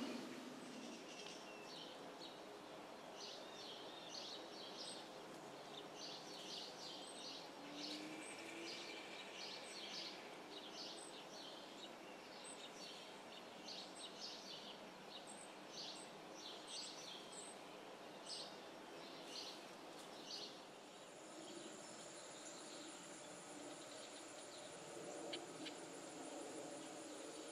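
Faint outdoor birdsong: a small songbird giving many quick, repeated chirps. About two-thirds of the way through, the chirping fades and a steady, high insect trill takes over.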